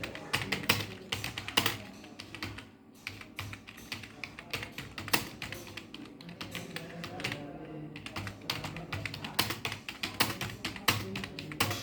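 Fingers typing on a computer keyboard: irregular runs of sharp key clicks.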